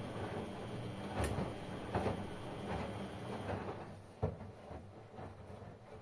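LG front-loading washing machines tumbling laundry: a steady motor hum with soft thuds as the wash turns over, and a sharp knock about a second in and another about four seconds in. The running noise gets quieter after about three and a half seconds.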